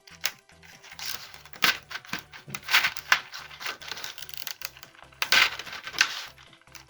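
Plastic packaging crinkling and tearing as it is opened by hand, in a string of irregular rustles, loudest near the middle and again about two thirds through.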